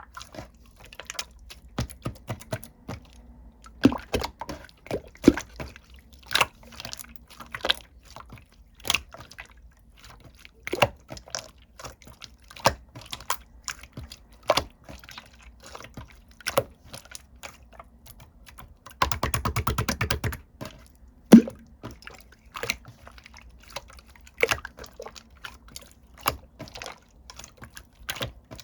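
Clear 'konjac jelly' slime being squeezed and poked by hand, giving irregular sharp, wet clicks and pops. About two-thirds of the way through comes a fast crackling run of small pops, followed by one loud pop.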